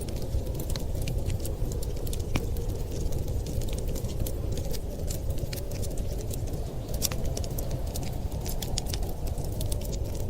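Wood fire crackling in a fireplace, with many irregular sharp pops and snaps over a steady low rumble of wind.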